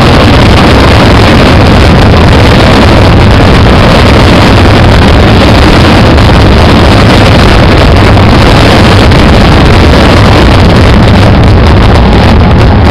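Fireworks finale: many shells bursting at once, their bangs merged into one continuous, heavy rumble that overloads the camcorder microphone.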